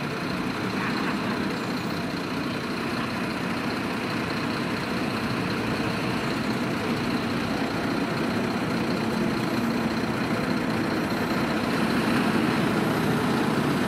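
Heavy diesel fire-engine motor running steadily at the fire scene, with a faint steady high whine above it; it gets a little louder near the end.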